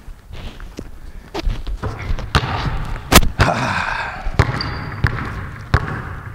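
Basketball bouncing on a hardwood gym floor: a string of irregular dribbles, with one louder bounce about three seconds in, echoing in the large gym.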